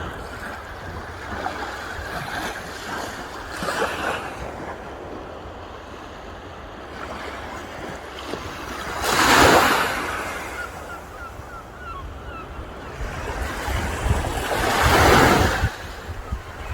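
Sea waves washing onto the shore, with two larger waves breaking, about nine and about fifteen seconds in, over a low wind rumble on the microphone.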